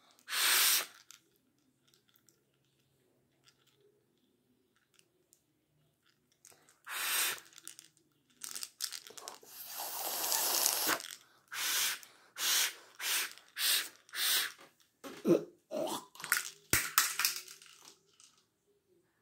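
Biting and crunching on something held at the mouth, close to the microphone. A short crunch comes right at the start, then from about seven seconds in a long run of crunchy bursts follows, for a stretch coming about one to two a second.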